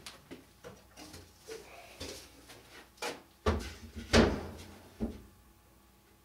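Wooden Langstroth beehive parts being handled and set in place: a series of light knocks and scrapes of wood on wood. The loudest knocks come about three and a half and four seconds in, and a last one about five seconds in.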